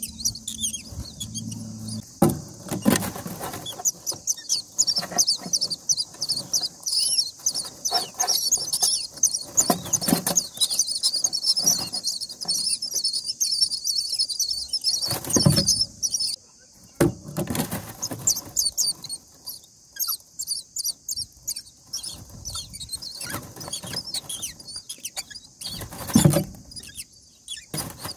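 Common myna nestlings begging: a dense run of rapid, high-pitched cheeps that pauses briefly a little past halfway. A few sudden thumps and rustles come from the nest as the adult comes in to feed them.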